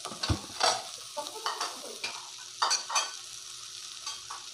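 Chopped meat pieces scraped from a plastic container and dropped into a hot aluminium pot, clattering in several sharp strokes, mostly in the first three seconds, over a steady sizzling hiss.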